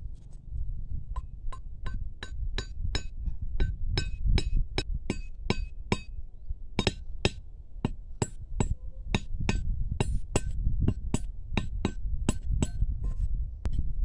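A steady run of sharp taps with a light metallic ring, about three a second, beginning about a second in and stopping shortly before the end.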